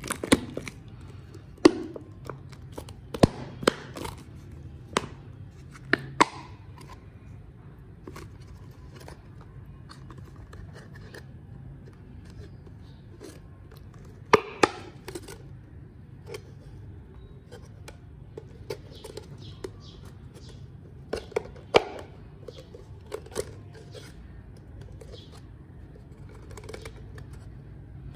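Pink slime squeezed from a plastic bottle and worked by hand on a plastic plate: sharp sticky pops and clicks, clustered in the first several seconds, then a few more spaced out over a low steady background.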